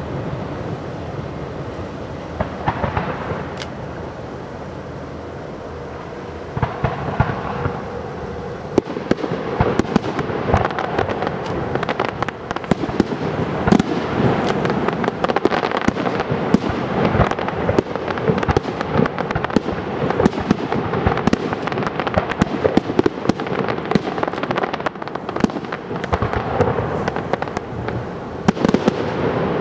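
Aerial fireworks, comets and shells bursting: a few separate bangs at first, then from about seven seconds in a dense, rapid run of pops and bangs that keeps going.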